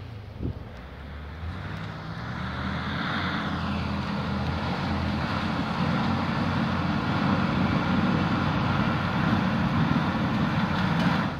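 Engine of a lifted Suburban on 42-inch mud tyres revving hard under load as it claws up a wet, muddy hill, building from about two seconds in and dropping off sharply at the end. A brief knock sounds about half a second in.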